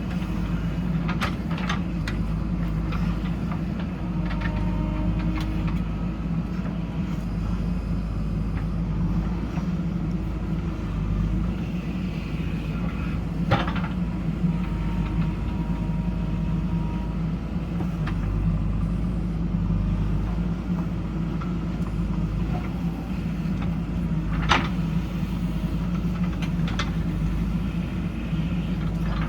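JCB backhoe loader's diesel engine running steadily while working, with a few sharp knocks, the loudest about 13 and 24 seconds in.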